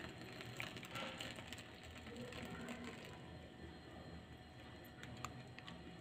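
Faint pouring of hot milk from a steel pan into ceramic mugs, with scattered light clicks, a couple of them sharper about five seconds in.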